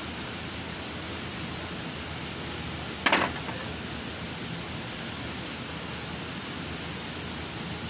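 Steady hiss of workshop background noise, with a large shop fan running. About three seconds in, a brief, loud clatter of a few quick knocks, as a tool or part is handled under the car.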